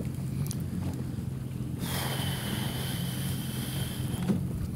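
Yamaha FXHO jet ski engine idling steadily at sea. From about two seconds in until just past four seconds, a high hiss with a steady high-pitched whine sounds over it.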